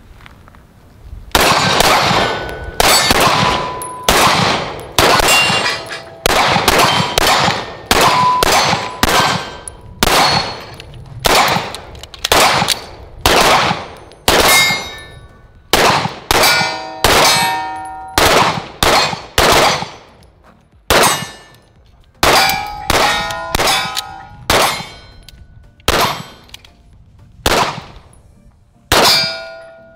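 Two pistols, one a Staccato, firing in turns at steel targets: about thirty shots at an uneven pace of roughly one a second, starting about a second and a half in, many followed by the clang and ring of a hit steel plate.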